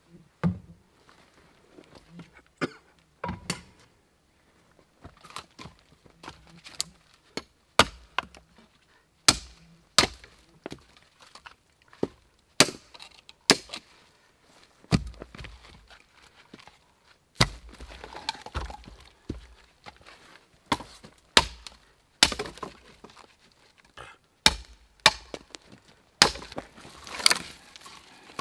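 Machete chopping into dead conifer wood, lopping branches off logs. It makes a string of sharp, irregular chops, roughly one a second, coming closer together in the second half.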